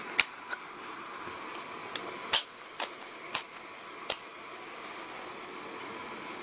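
Football trading cards being handled and shuffled: about six short clicks and rustles in the first four seconds or so, over a steady background hiss.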